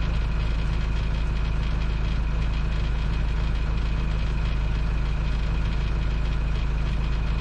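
Boat engine idling steadily, a low, even rumble.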